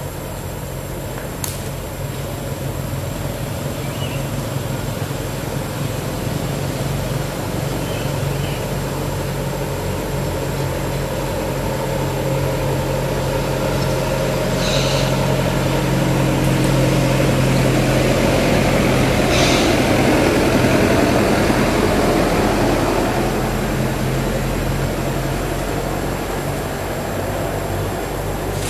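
A motor vehicle engine running steadily as a low hum, swelling louder about halfway through and then easing off.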